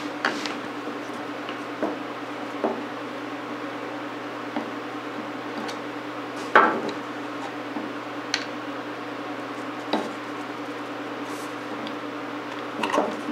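Scattered light clicks and taps of a screwdriver and metal parts against a Roth-Steyr 1907 pistol while its wooden grip panel is unscrewed and handled, with a louder knock about halfway through and a few more near the end.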